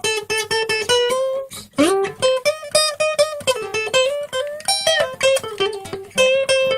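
Guitar playing a fast single-note blues lead, plucked notes one after another with a note bent upward about two seconds in.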